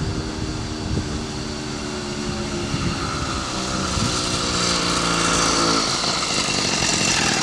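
80cc two-stroke motorized bicycle engine running under load on a hill climb, its pitch slowly sinking as it labours. About six seconds in the engine note fades, leaving a rising hiss.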